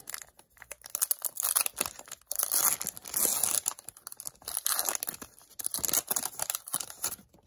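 Wrapper of an Upper Deck Series 1 hockey card pack being torn open and crinkled, an irregular run of tearing and crackling.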